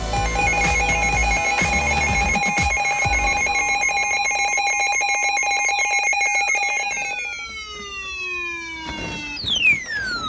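Electronic alert tones from an emergency alert broadcast: a steady high tone with a trilling, ring-like tone over it. About two-thirds of the way through these give way to a series of falling pitch sweeps, the last and loudest about a second before the end.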